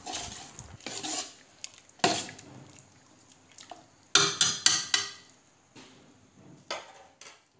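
Metal ladle stirring thick curry in a metal pot, clinking and scraping against the pot: a few separate knocks, then a quick run of clinks about four seconds in.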